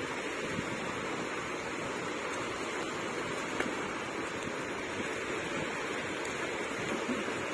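Steady wash of small surf breaking on a sandy beach.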